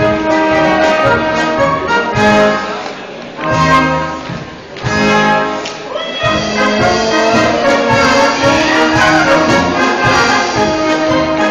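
Live brass band playing a folk dance tune with a steady beat, breaking off briefly for a held chord about four seconds in before the beat picks up again.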